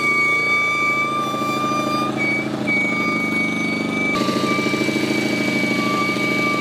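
Machinery running: a steady high whine over a fast, even low pulsing. The whine breaks off briefly twice.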